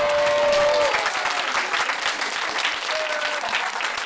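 Audience applauding: many hands clapping steadily. A single held tone sounds over it during the first second.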